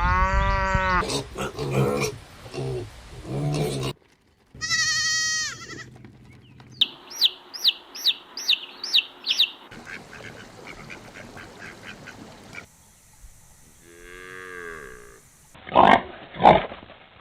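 Farm animal calls cut one after another: long pitched lowing and bleating calls, a quick run of about eight short rising calls in the middle, and loud, rough grunting calls near the end.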